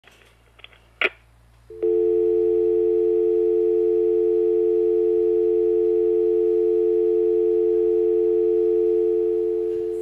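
Landline telephone dial tone: a steady two-note tone, the North American 350 and 440 Hz pair, starting just under two seconds in and fading near the end. A sharp click comes about a second in, before the tone.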